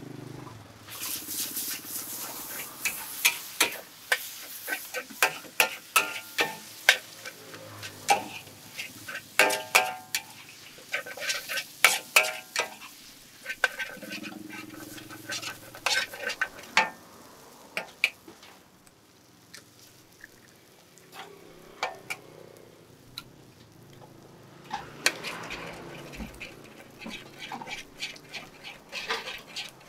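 Metal serving utensils clinking and clattering on plates and dishes as food is plated, a rapid run of sharp clicks with a few ringing metal strikes. It eases off for a while past the middle, then picks up again near the end.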